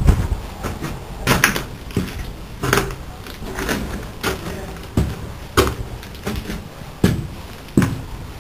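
Footsteps climbing concrete stairs scattered with grit and rubble: about ten sharp steps at a steady pace, roughly one every two-thirds of a second.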